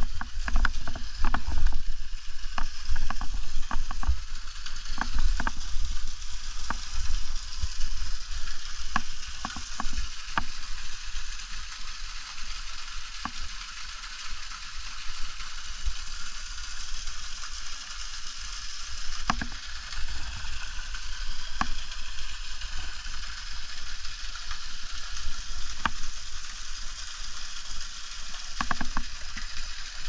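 Water falling and dripping at a partly frozen waterfall under icicles: a steady hiss with many sharp drips and taps, thickest in the first half. There is a low rumble during the first several seconds.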